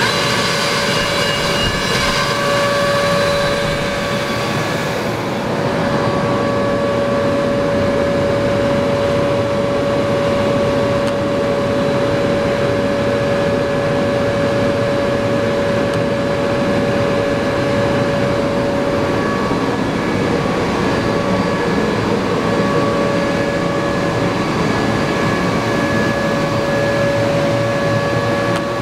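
Atlas Copco GX11 15 hp rotary screw air compressor running steadily just after start-up and building tank pressure, a steady whine over a constant rush of noise. A higher hiss fades about five seconds in.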